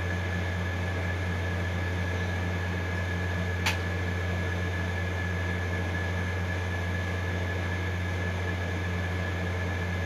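A steady machine hum with a thin high tone running over it, and one sharp click about three and a half seconds in.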